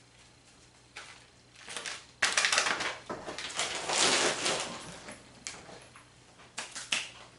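Rustling and crinkling of packaging being handled, loudest in the middle, with a few light knocks and clicks near the end.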